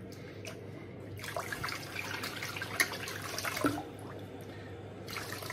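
Zenith silvertip shaving brush loaded with dense shaving-soap lather being worked over the face, a wet squishing with many small irregular clicks from about a second in.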